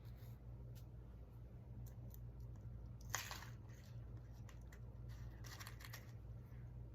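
Faint rustling and crinkling of craft materials being handled, with scattered light clicks, a short louder crinkle about three seconds in and a longer one near six seconds.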